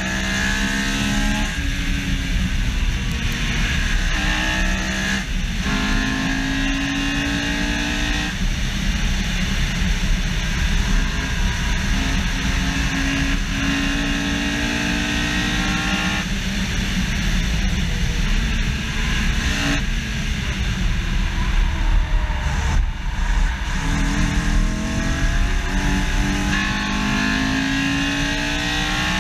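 Honda S2000's F20C four-cylinder engine driven hard, its note climbing in pitch and breaking off and dropping back several times as the driver shifts or lifts, under heavy wind and road noise.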